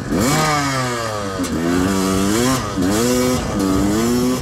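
1993 Yamaha YZ250 two-stroke dirt bike engine running hard under throttle, its pitch sliding down, then rising and dipping several times as the revs change.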